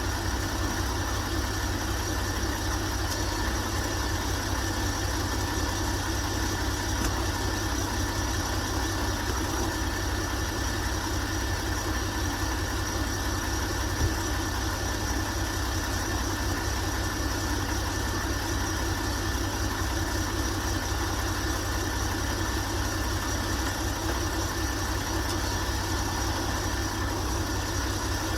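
Truck engine idling steadily with an even low pulse, with one small click about halfway through.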